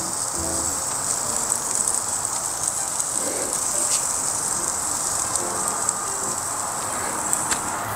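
Burgers and steaks sizzling on the grate of a Weber charcoal kettle grill over hot coals: a steady hiss with an occasional faint click.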